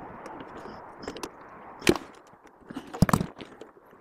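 Metal clicks and knocks of hand tools working on a combi boiler's pressure relief valve as its head is wound out and swapped, with one sharp knock about two seconds in and a quick cluster of knocks about three seconds in.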